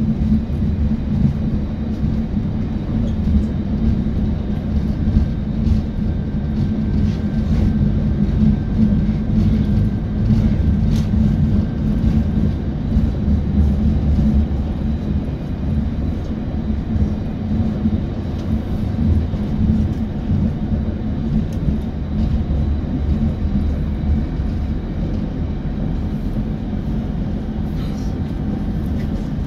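ABB UBp electric multiple unit running along the track: a steady low rumble of wheels and running gear, with a faint steady whine between about 5 and 12 seconds in.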